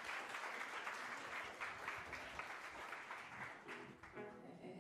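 Audience applauding, the clapping dying down about three and a half seconds in; near the end a few held pitched notes come in.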